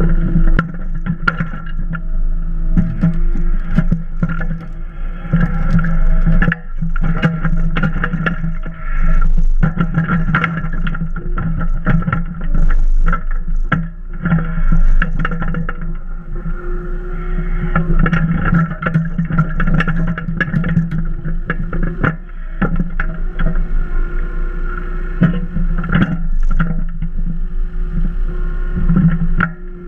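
Hitachi EX22 mini excavator's diesel engine running steadily while driving the hydraulic log splitter. Frequent sharp knocks and clanks from the splitter and the wood sound over the engine.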